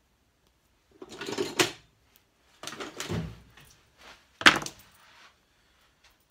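Handling noises as a cable tie is fitted around a cordless drill's grip to lock its trigger on: three short bursts of rustling and scraping, the loudest a sharp knock about four and a half seconds in. The drill is not running.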